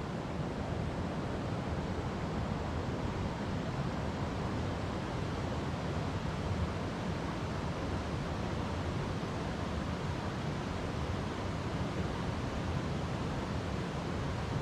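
River water flowing over rocks: a steady, unbroken rushing, heaviest in the low end.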